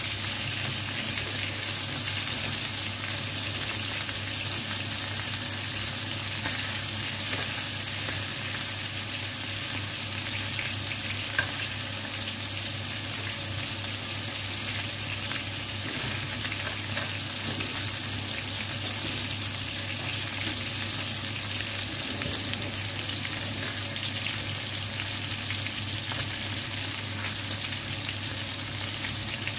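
Chicken pieces sizzling as they fry in hot oil in a pan, with a steady low hum underneath. Metal tongs turning the pieces make occasional clicks against the pan, one sharper about 11 seconds in.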